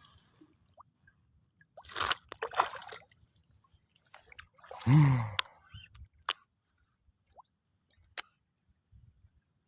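Wet squelching and splashing in bursts as a freshly hooked snakehead is landed and handled, with a short falling grunt about five seconds in and a few sharp clicks after it.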